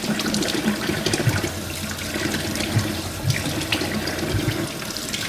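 Kitchen faucet running into a stainless steel sink, with splashing as water is scooped onto a face to rinse off a face mask. It starts abruptly as the tap is turned on.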